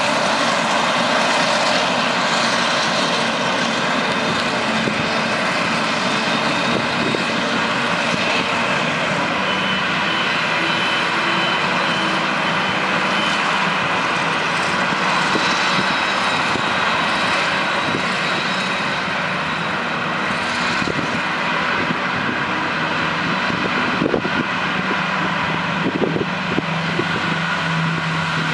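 Claas Jaguar 970 self-propelled forage harvester chopping wheat for silage, its engine and chopping drum under load in a steady drone with several steady tones in it, while a tractor pulling the dumper trailer runs alongside.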